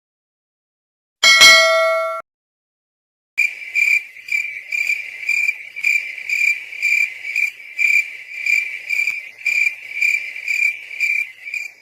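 A single bell-like metallic ding that cuts off abruptly after about a second, followed, after a short silence, by crickets chirping in a steady, even pulse of about two chirps a second: the stock 'crickets' sound effect for an awkward silence.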